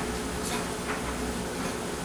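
Kenmore 41162 front-load washer running its rinse cycle: a steady motor hum with a low rumble that comes and goes and light rattling, over the steady hiss of a clothes dryer.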